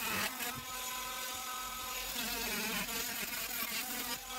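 Oscillating multi-tool with a saw blade buzzing steadily as it cuts and scrapes out the cracks in an old oak log.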